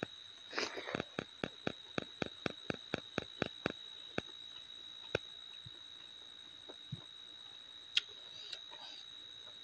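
Eating sounds from a meal of rice eaten by hand: a quick run of small wet clicks, about four a second for the first few seconds, then a few scattered clicks, over a faint steady high whine.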